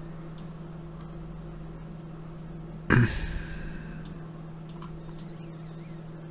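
A steady low hum with a few faint clicks, broken about three seconds in by one short, loud sound that dies away within about half a second.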